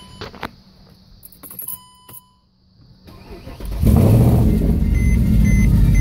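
Mercedes C63 AMG's 6.2-litre V8, straight-piped with catalytic converters and resonator removed and only the rear mufflers kept, cranking and catching about four seconds in, then going straight into a loud idle. Before the start, two short dashboard chime tones sound. Once it is running, a warning chime beeps about twice a second.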